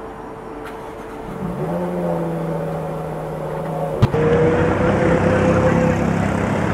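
A car engine note comes in about one and a half seconds in and holds steady. An abrupt cut comes about four seconds in, to louder road traffic in which one vehicle's engine note rises slowly as it accelerates.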